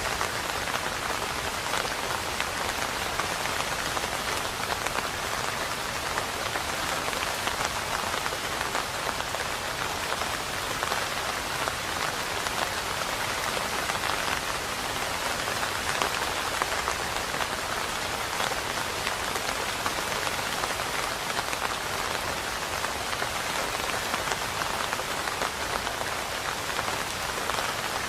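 Steady rain falling, a dense even patter of drops at a constant level.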